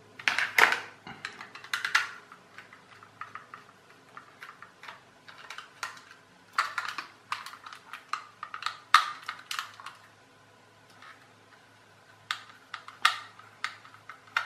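Irregular plastic clicks, taps and knocks as a small plastic toy car is handled and its screws are worked out with a small screwdriver, with plastic remote controls shifted about on a table. The loudest knocks come near the start and around two, seven, nine and thirteen seconds in.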